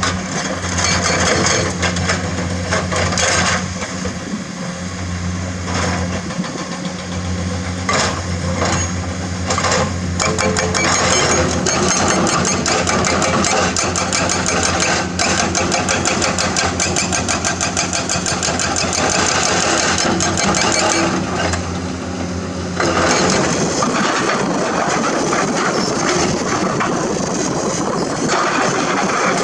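A Komatsu hydraulic excavator's diesel engine runs steadily under load while digging limestone, with knocks and scrapes of the bucket on rock. A rapid clatter runs through the middle stretch.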